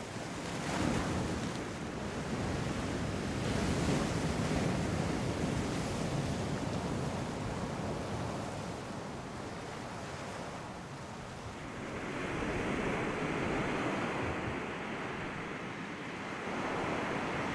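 Sea waves washing and breaking, a steady rushing that swells and eases in slow surges, with wind on the microphone.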